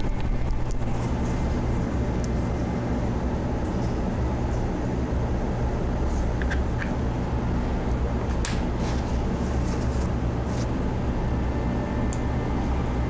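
Steady low hum of background machine or room noise, with a few faint light clicks scattered through it.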